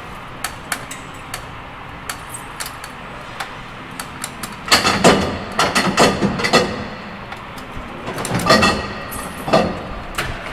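Metal clicks and clanking from hands working the main undercarriage ground lock of an Avro Lancaster, the lock that stops the gear folding up. Scattered single clicks are heard, with a busier spell of clattering about halfway through and another shortly after.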